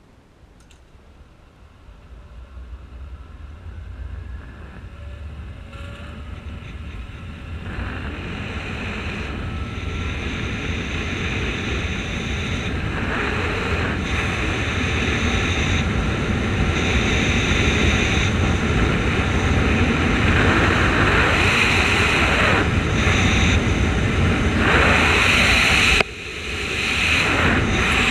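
Wind rushing over the camera microphone together with the zipline trolley running along its steel cable, growing steadily louder as the rider picks up speed. The rushing dips suddenly about two seconds before the end, then builds again.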